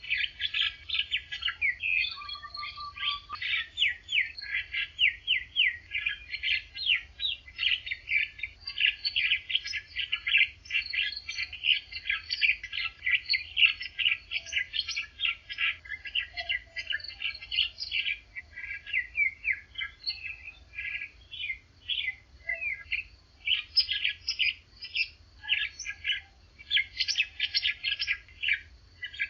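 Songbirds chirping in a continuous morning chorus of rapid strings of short, high notes, with only brief gaps.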